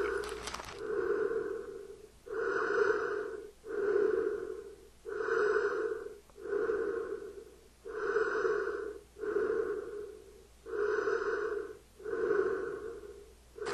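A man breathing heavily and slowly behind a mask, about five even in-and-out breaths, each breath over a second long.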